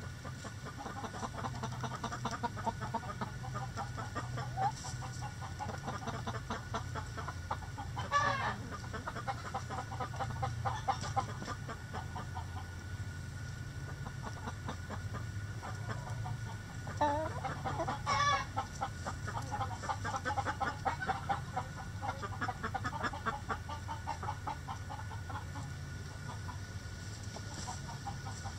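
A flock of backyard chickens clucking continuously, many short overlapping calls, with a louder call standing out about 8 seconds in and again around 17 to 18 seconds.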